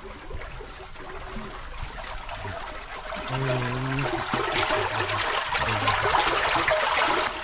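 Shallow water rushing and trickling as it flows through a bamboo-and-net barrier in a rice-field channel, getting louder about three seconds in.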